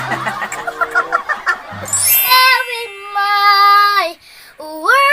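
Children's voices over background music: chatter and laughter, then a long held sung note that slides down at its end, and a second note that slides up near the end.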